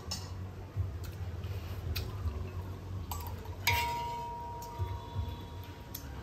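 Metal spoons and a ladle clinking against ceramic bowls and an aluminium pot as noodle soup is ladled and eaten. There are a few scattered clinks; the loudest, about three and a half seconds in, rings on for a couple of seconds.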